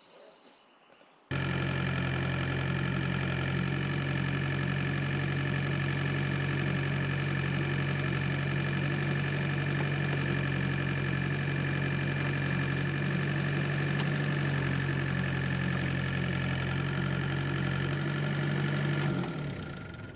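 Engine running steadily at a constant speed, starting abruptly about a second in and fading out near the end.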